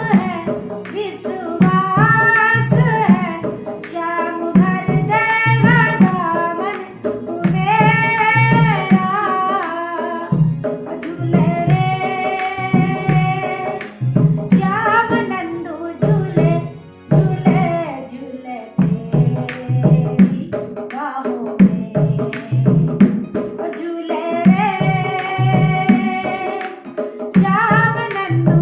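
A woman singing a song in a held, melismatic voice over a steady hand-drum beat.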